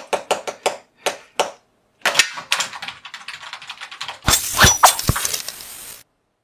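Animation sound effects: a quick run of about seven sharp clicks and taps, then a rushing hiss, then a loud crash with hard hits that cuts off suddenly near the end.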